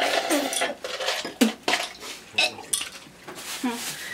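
Plastic bags and snack packaging rustling and crinkling, with irregular sharp clicks and small knocks of items being handled on the table.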